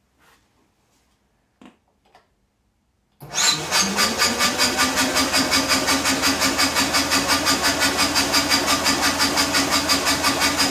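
Electric dynastart motor cranking a custom single-cylinder motorcycle engine over without firing, with the decompressor vent holes in its new cylinder head open. After a few faint clicks it spins up quickly about three seconds in and runs on at a steady, fast cranking speed with an even pulse of about five beats a second.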